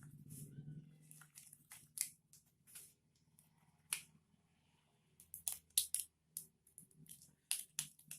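Handling noises: an irregular series of sharp clicks and light crinkles, as of plastic and small equipment being handled, with the densest cluster from about five and a half seconds in.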